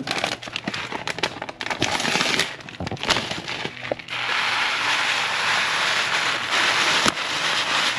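Dry rice-and-pasta mix pouring from a packet into a pan of broth. First the packet crinkles and the grains tick and patter. Then, from about four seconds in, a steady hiss as the second packet empties.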